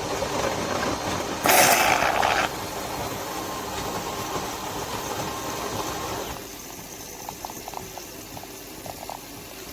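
Water rushing and gurgling, with a louder hiss for about a second about a second and a half in; it drops to a quieter sound with faint short ticks after about six seconds.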